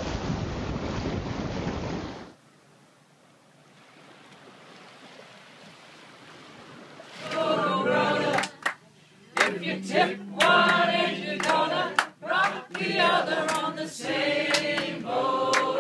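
Wind rushing on the microphone aboard a sailboat under way, cut off sharply about two seconds in, then a few seconds of faint hiss. From about seven seconds in, a group of voices sing together in long held notes.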